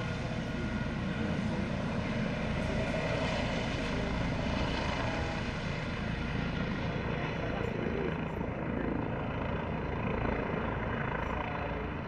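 Eurocopter EC155 B1 helicopter hovering low: steady rotor and twin Arriel 2C2 turbine noise with a whine running through it. The sharper top of the sound fades from about seven seconds in.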